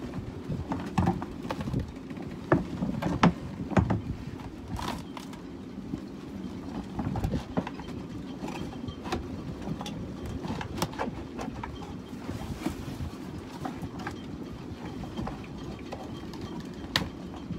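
Irregular clicks and knocks of hands handling and prying at a fibreglass cockpit instrument panel frame, busiest in the first few seconds, over a steady low rumble.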